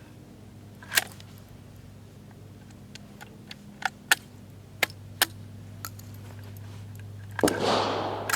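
Sharp metallic clicks and clacks from handling and loading a Century Arms PW87 lever-action 12-gauge shotgun. Near the end comes a louder rushing burst that dies away over most of a second.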